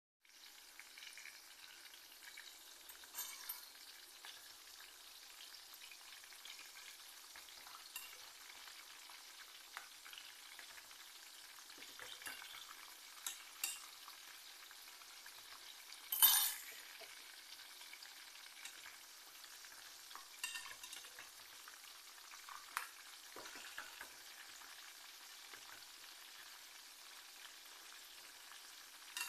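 Nuggets deep-frying in bubbling oil in a saucepan: a steady sizzling hiss, with a few brief louder noises as a spoon turns them, the loudest about 16 seconds in.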